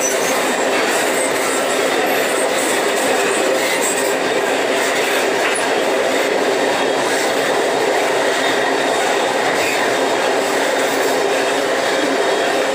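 Freight train's steel-wheeled iron-ore wagons rolling past at close range: a steady rumble and rattle of wheels on the rails.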